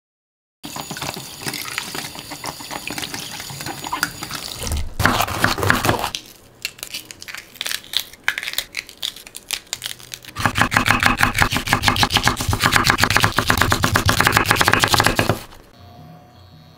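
Water running from a kitchen tap for about five seconds, then scattered soft clicks and snaps as green pepper stems are pulled off on a wooden cutting board. These are followed by about five seconds of fast, even knife strokes slicing the peppers on the board.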